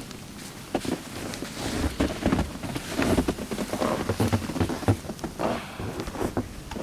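Blizzard wind gusting over the microphone with wind-driven snow, an uneven hissing and crackling noise that rises and falls in loudness.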